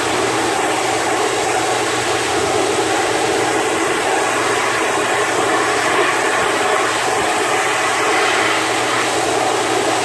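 Dog grooming force dryer blowing air through its hose nozzle: a steady, loud rush of air over a low hum.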